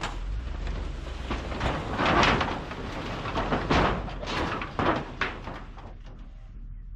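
Irregular bangs, knocks and rattles of a shed being dismantled, with several heavier crashes in the middle before it quietens.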